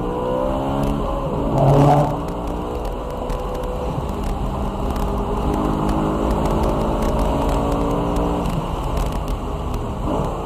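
BMW E92 M3's 4.0-litre V8 engine driven hard, its pitch climbing and dropping with throttle and gear changes, with a brief louder surge about two seconds in.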